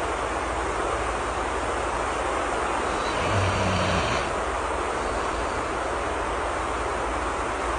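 Steady rain hiss, with one soft snore lasting under a second about three and a half seconds in.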